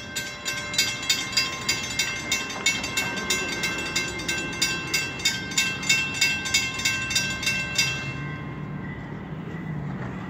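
Railroad grade-crossing warning bell ringing in rapid, even dings, about three a second, while the crossing gates lower. The bell stops about eight seconds in, leaving a low steady hum.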